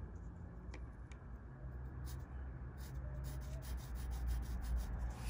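Pencil scratching on lined paper in short strokes, sparse at first and more frequent after about two seconds, over a low steady hum.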